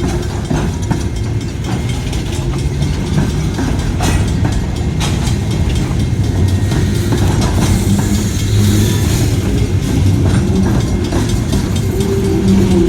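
Freight train rolling past: a steady rumble of the cars, with wheels clicking over the rail joints.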